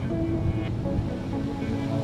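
Soft background music with a few long held notes over a steady rain-sound bed with a low rumble.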